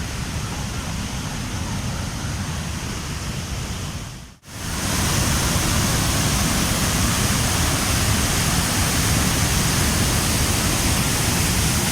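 Waterfall's steady rush of falling water. It drops out for a moment about four seconds in and comes back louder and brighter.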